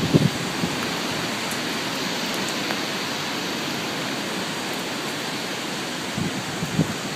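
Hurricane Sandy's storm wind and rain: a steady rushing hiss, with a few short gusts buffeting the microphone near the end.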